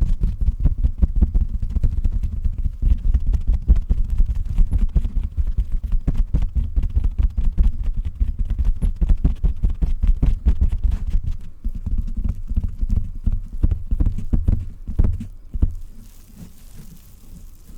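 Rapid, dull tapping on a pillow, a fast run of thuds that stops about 15 seconds in, leaving a soft hiss.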